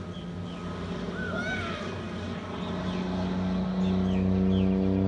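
Single-engine aerobatic biplane's propeller engine droning overhead at a steady pitch, growing louder about three-quarters of the way through as the plane comes nearer.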